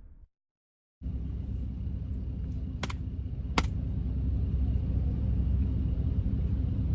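Steady low rumble of a car idling, heard from inside the cabin, starting about a second in after a brief silence. Two short sharp clicks come about three and three and a half seconds in.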